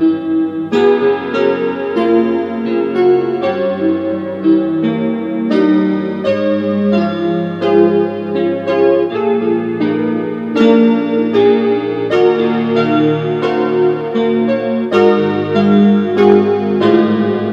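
Solo piano music: a steady stream of struck notes and chords.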